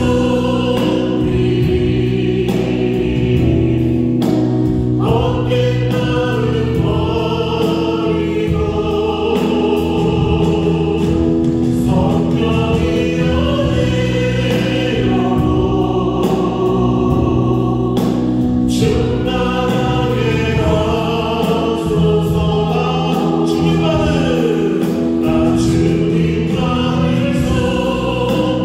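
Praise team of several voices singing a Korean worship song together, backed by keyboard, bass guitar and drums, with a drum hit every several seconds.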